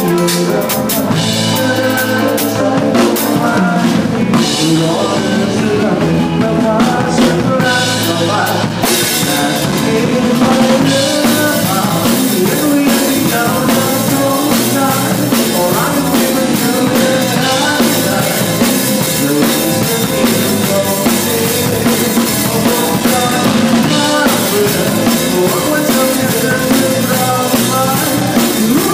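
A band playing live, heard from beside the drum kit: loud kick, snare and cymbals over the other instruments. The cymbals fill in more densely from about nine seconds in.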